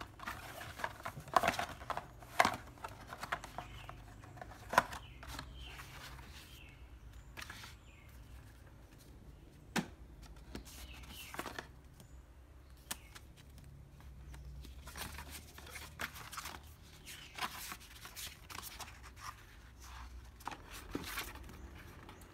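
Cardboard laptop packaging and paper booklets being handled: inner box panels lifted out and set down, with scattered sharp taps, rustles and clicks, the loudest in the first few seconds.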